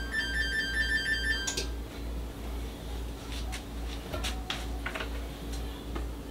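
A rapid repeating electronic beeping tone, like a ringtone, stops abruptly about a second and a half in; then a few clinks and knocks of cookware at the stove, over a steady low hum.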